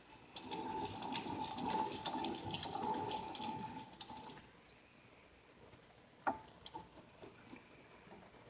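Bad wheel bearing on a 2006 Chevrolet Aveo grinding with a steady whine as the wheel turns. It runs for about four seconds and stops suddenly, then two sharp clicks follow.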